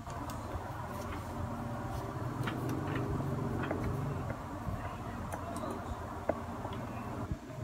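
Lenovo IdeaPad Z570 laptop switched on, its cooling blower fan spinning up into a steady whir, with scattered light clicks.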